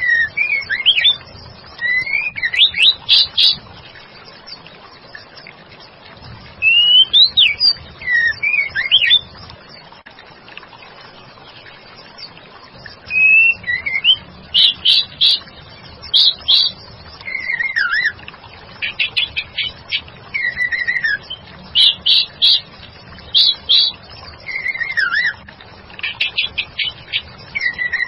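White-rumped shama calling, given as a female calling to a male: a lure recording meant to make a male shama answer. Short phrases of slurred whistles alternate with quick rattling runs of repeated sharp notes, each a second or two long with brief pauses between, over a faint steady hiss.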